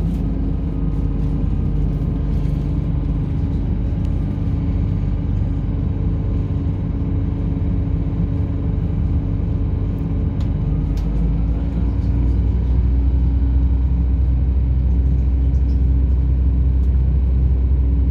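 On-board sound of a British Rail Class 170 diesel multiple unit: its underfloor MTU diesel engine running steadily with the rumble of the train in motion. The low rumble grows louder about twelve seconds in.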